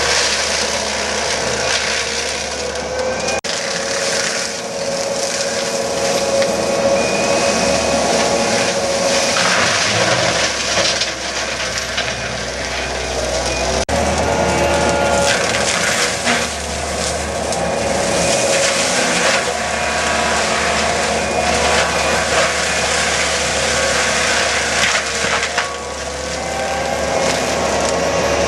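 Skid-steer forestry mulcher with a fixed-tooth rotor spinning at speed and shredding wood and brush, with a steady running tone and constant cracking and splintering of wood. The sound changes abruptly twice, about three and a half and fourteen seconds in.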